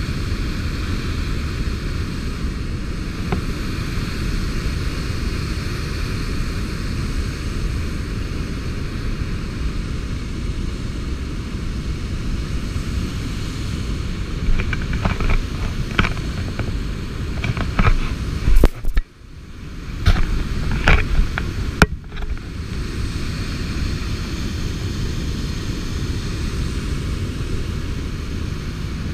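Steady low rushing rumble of water spray and wind past a moving boat, with a few sharp knocks in the middle and a brief drop-out about 19 seconds in.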